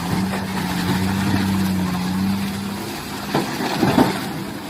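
Steady engine-like hum, as of a truck engine running, with two short knocks near the end.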